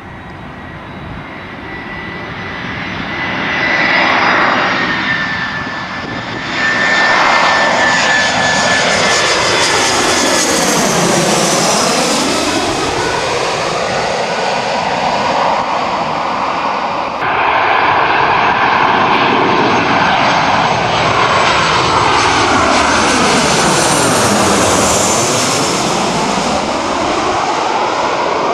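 Twin-engine jet airliners on landing approach passing low overhead, one after another. The engine noise swells and fades with a steady high whine under the rush, and the tone sweeps down and back up as each jet goes overhead, about halfway through and again near the end. The sound jumps abruptly twice where clips are joined.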